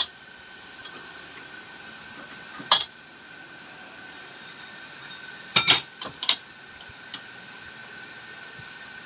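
Metal parts and tools clinking sharply a few times as a motorcycle mono-shock absorber is reassembled: one clink about three seconds in and a quick cluster of three a little past halfway, over a faint steady high hum.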